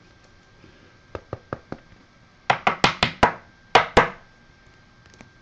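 A series of sharp taps: four faint ones, then a quick run of five loud ones about halfway through and two more shortly after.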